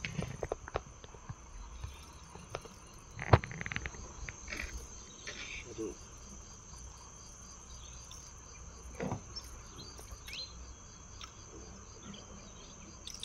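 Steady high-pitched insect chorus from the riverbank forest. A loud knock comes about three seconds in and a smaller one around nine seconds.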